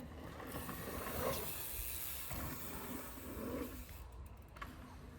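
Mountain bike rolling on a dirt trail: a rushing hiss of tyres and air that swells about half a second in and fades near four seconds.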